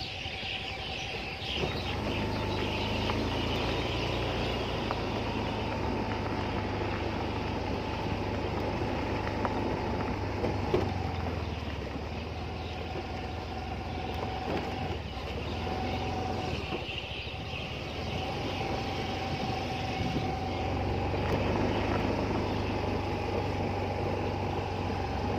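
A vehicle engine running steadily, with a steady higher tone over its low hum; the hum drops away briefly twice in the middle.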